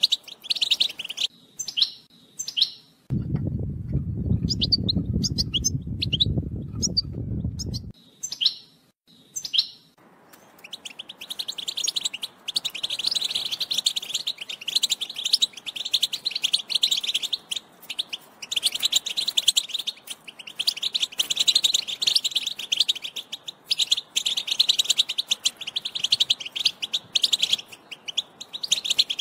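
European goldfinch singing: fast twittering notes, scattered over the first ten seconds, then long, nearly unbroken runs of song. A low rumble starts and stops abruptly under the song for about five seconds near the start.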